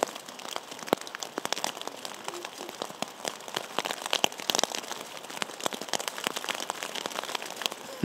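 Rain pattering on a tarp shelter overhead: a steady hiss of rain with many sharp, irregular drop strikes close by.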